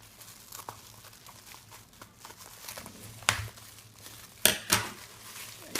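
Packaging being opened by hand: crinkling and rustling with a few sharp cracks, the loudest two close together about four and a half seconds in.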